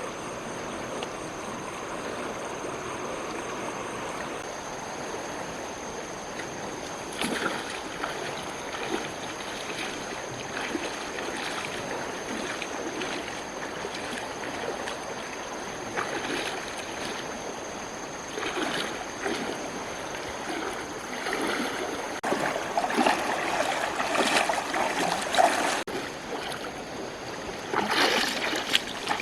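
Running water with irregular splashing and sloshing, which gets busier in the second half and peaks in a loud splash near the end. A faint, steady high whine runs underneath.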